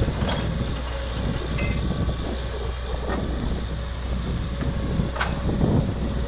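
Truck-mounted borewell drilling rig running, a steady heavy low rumble. Sharp knocks near the start and about five seconds in, and a ringing metal clink about a second and a half in.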